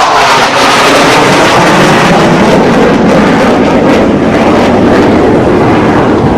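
Loud jet engine noise from a military jet passing low, sinking steadily in pitch as it goes by.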